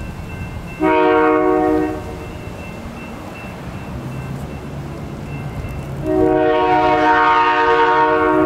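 CN diesel locomotive's multi-note air horn: a short blast about a second in, then a long blast starting about six seconds in, over the low running of the approaching locomotive's engine.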